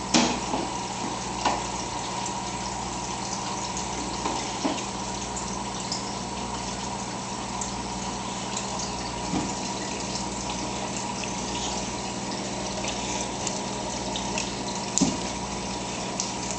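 Aquarium filter running: steady trickle and splash of water over the hum of its pump. A few brief knocks come in between.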